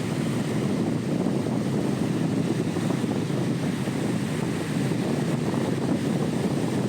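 Wind rushing steadily over the microphone, mixed with sea surf, cutting off abruptly at the end.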